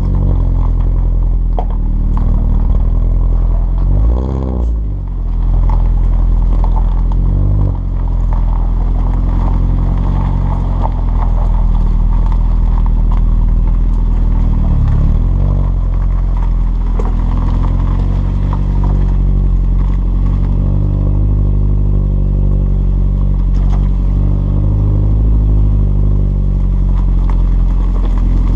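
Exhaust note of an Alfa Romeo Brera S 2.2's four-cylinder petrol engine, heard at the tailpipes through a stainless steel cat-back exhaust with the centre silencer removed and Prodrive back boxes, as the car is driven. Its pitch dips and recovers several times in the first half, then holds steady.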